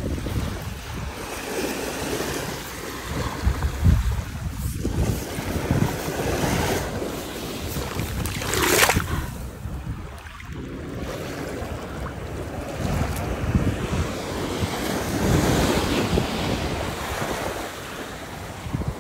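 Shallow surf washing in and out over wet beach sand, with wind buffeting the microphone. There is a brief louder rush about nine seconds in.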